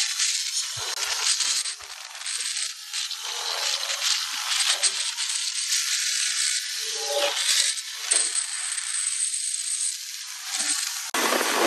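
Road noise from riding through traffic: a rough, high hiss that rises and falls, with no engine rumble heard.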